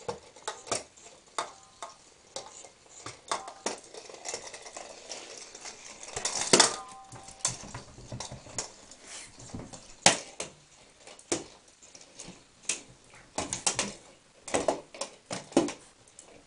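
Irregular knocks and clatters as a battery-operated toy ball and a puppy bump against stainless steel dog bowls on a tile floor. The loudest is a clang about six and a half seconds in, with the metal bowl ringing briefly.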